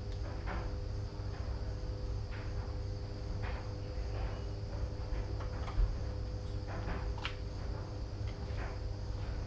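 Crickets chirping in a steady high chorus over a constant low hum, with scattered short higher chirps.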